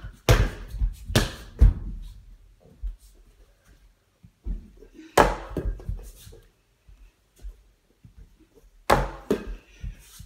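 Knocks and thunks of a foam Nerf ball thrown at an over-the-door mini hoop, striking the backboard, rim and wooden door and bouncing. A cluster of hits in the first two seconds, another about five seconds in, and two close together near the end.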